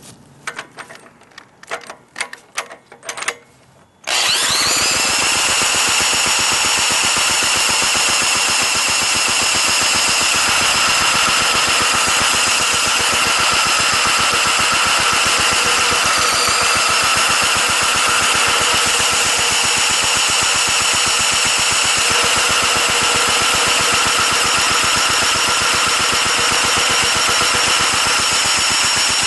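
Small clicks and taps of handling, then about four seconds in a power tool spins up with a rising whine and runs steadily, cranking the antique 5 HP Briggs & Stratton engine over. The engine turns but does not fire; the uploader suspects a bad spark plug or low compression.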